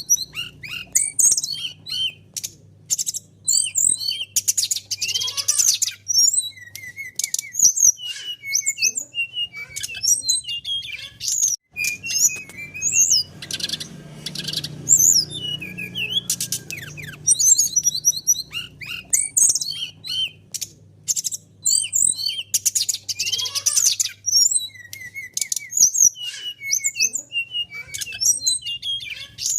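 Brown-chested jungle flycatcher (sikatan rimba dada coklat) singing a busy, varied string of high chirps, quick whistles and short trills. A faint low hum runs underneath.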